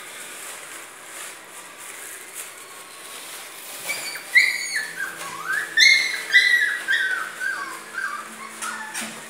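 Cocker Spaniel puppies whining: a run of short, high-pitched whimpers starting about four seconds in, some stepping or sliding up and down in pitch.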